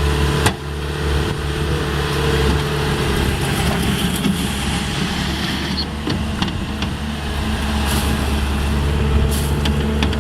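Diesel engine of a Bobcat T750 tracked skid steer loader running steadily, with a few sharp knocks, the loudest about half a second in.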